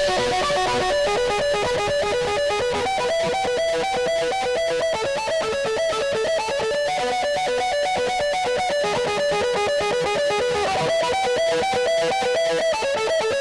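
Background music: a fast, repeating picked electric-guitar melody with no drums.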